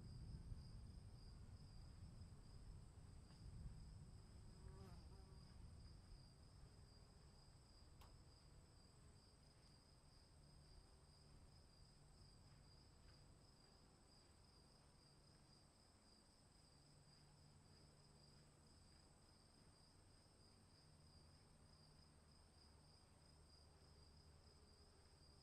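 Faint, steady chirring of insects, two continuous high-pitched tones, over a low rumble of distant thunder that fades away during the first several seconds.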